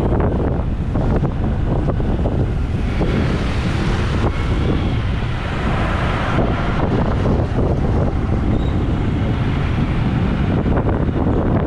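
Wind buffeting the built-in microphone of a helmet-mounted GoPro Hero 8 on a moving motorcycle: a loud, steady rumble with no external mic to block it, with a brighter hiss for a few seconds in the middle.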